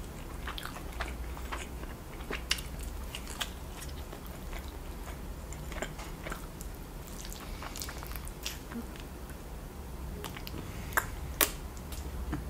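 A man chewing and biting sauce-covered rotisserie chicken eaten by hand, with wet mouth smacks and scattered short clicks. Two sharper, louder smacks come about a second before the end.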